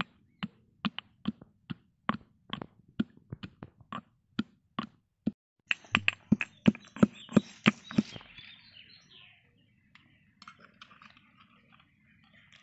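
Garlic cloves pounded with a pestle in a black stone mortar: sharp knocks about two a second, speeding up to about five a second before stopping about eight seconds in. After that comes faint scraping as a spoon gathers the crushed garlic.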